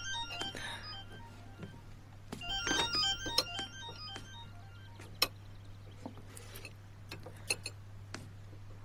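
Quiet background music of sparse, soft keyboard notes, with a few sharp taps scattered through it.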